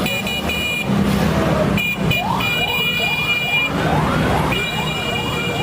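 A siren-like wail that rises and falls about twice a second, starting about two seconds in, over a steady low rumble, with high steady horn-like tones sounding on and off.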